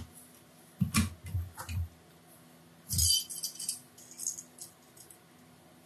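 Small metal fishing tackle being handled: soft knocks about a second in, then a brief metallic jingle of the hook and ring at about three seconds, and a fainter one just after.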